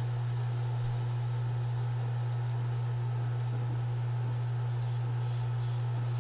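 A steady low hum with a faint hiss above it, unchanging throughout; no other distinct sound.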